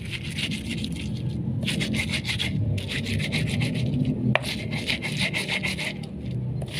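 Stone-on-stone grinding of shallots, garlic, chili and salt with a plain stone used as pestle, in runs of quick rubbing strokes. A sharp click about four and a half seconds in.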